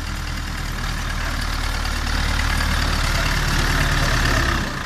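Ursus C-360 tractor's four-cylinder diesel engine running steadily as the tractor drives slowly past close by, growing louder as it nears.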